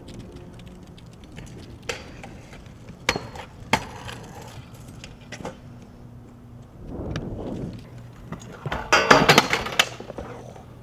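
Hard clacks of a riding deck striking pavement and stone, a few single ones early, then a rolling rumble and, about nine seconds in, the loudest burst of clattering impacts.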